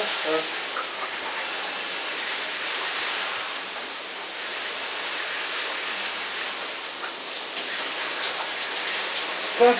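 Shower spray running steadily, an even hiss of falling water.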